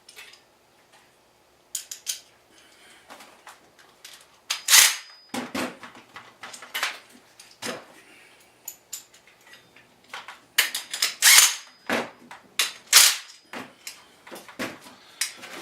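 Irregular sharp metallic clicks and clinks of hand tools on the nuts and bolts of a motorized bicycle's rear sprocket as they are snugged down, with the loudest knocks about five seconds in and a busier run in the last third.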